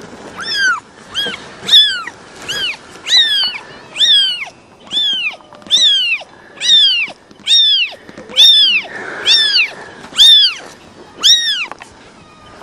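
Ten-day-old kitten mewing loudly and over and over, about one high call a second, each call rising and then falling in pitch.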